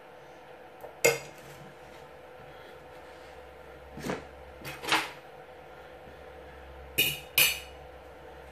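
Metal utensils, a ladle and a fork, clinking against a frying pan and a plate while sauce is served: a sharp clink about a second in, two more around four to five seconds, and a quick pair around seven seconds.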